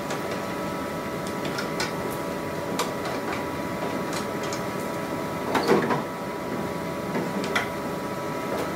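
Steady hum of a Zebra ZXP Series 8 card printer and laminator running, with scattered light clicks and knocks as the heated roller assembly is handled and removed, a small cluster of them about halfway through.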